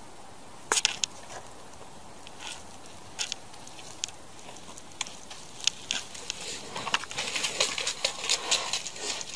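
Sharp clicks and crackles over a steady hiss, a few scattered at first, then a dense scratchy crackling from about seven seconds in as a cat's claws scramble up a tree trunk's bark.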